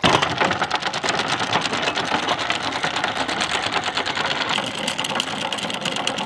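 A fast, steady mechanical clatter of rapid, even ticks that starts suddenly and keeps going.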